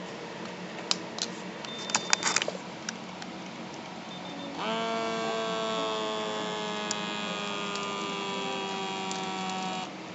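Santamedical wrist blood pressure monitor switching on with a few clicks and a short beep. About four and a half seconds in, its small air pump starts inflating the wrist cuff with a steady whine that slowly drops in pitch as the pressure rises, then cuts off just before the end.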